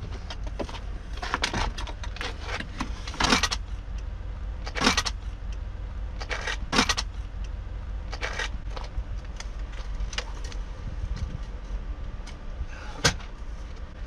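Metal knocks and rattles as the driver's seat, on its steel rails, is worked loose and lifted out of the car, about half a dozen separate clatters with the sharpest near the end, over a steady low rumble.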